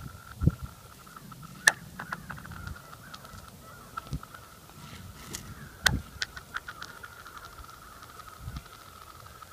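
Stones thrown onto thin lake ice: four sharp hits, the loudest about two seconds in and again near six seconds. After the last hit comes a quick run of high, ringing ticks as the stone skitters across the sheet. A faint steady high tone runs underneath.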